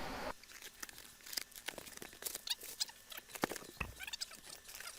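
A parcel being opened by hand: faint, irregular scratching, crackling and clicking of packaging, with a few brief squeaks.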